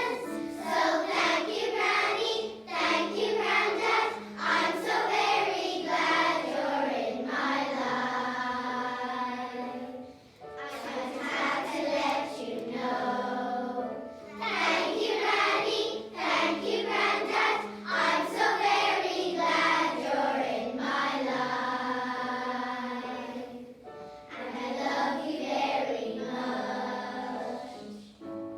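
A choir of young schoolgirls singing a song together in unison, phrase after phrase, over steady held low accompaniment notes.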